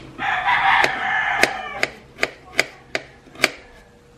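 A knife slicing a shallot against a plastic plate, making sharp taps two to three times a second. Over the first second and a half a rooster crows.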